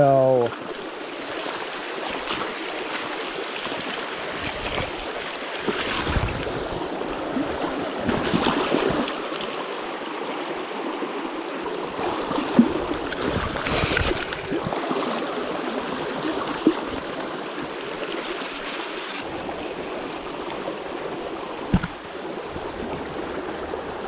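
Shallow creek water rushing steadily over stones close by, with a few short knocks now and then.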